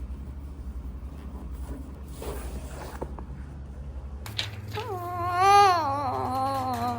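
A drawn-out wavering cry starts about two-thirds in, its pitch sliding down and then holding, over a faint steady low hum.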